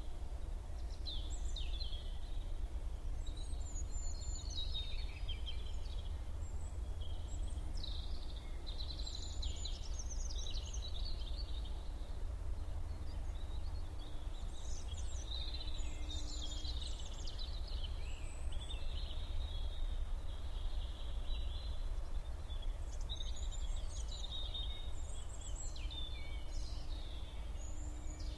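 Several songbirds singing in a morning chorus, with quick overlapping chirps and trills that never pause for long, over a steady low rumble of background noise.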